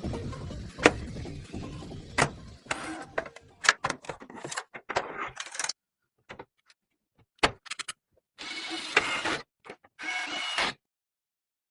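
Computer hardware being handled during a PC build: a string of sharp clicks and knocks, with two short rustling bursts near the end, broken by abrupt silent gaps.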